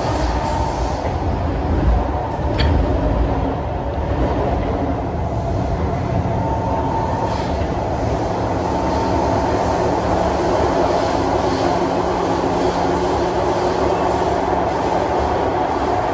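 Kawasaki C151 metro train heard from inside the car as it runs through an underground tunnel: a steady rumble of wheels and running gear, with a high whine that comes and goes. A single sharp click sounds about two and a half seconds in.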